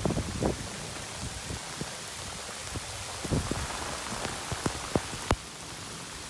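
Heavy rain pouring down onto a lake and the surrounding campsite: a steady hiss, with scattered sharp taps of drops striking close by.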